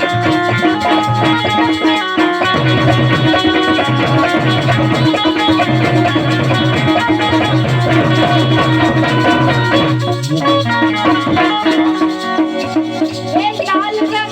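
Instrumental passage of a Bundeli Rai folk song: drums beating under held melodic lines, with a gliding, wavering melody coming in near the end.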